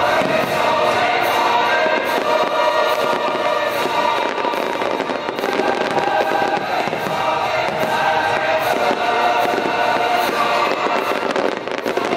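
Aerial fireworks bursting in rapid succession over a loud soundtrack of orchestral music.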